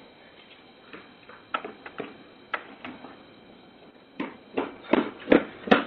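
A series of sharp knocks: a few scattered ones in the first half, then about five in a row, roughly two or three a second, over the last two seconds.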